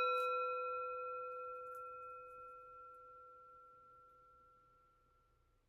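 A meditation bell, struck once just before, rings on with a few clear tones and fades away over about five seconds, marking the start of the silent sit.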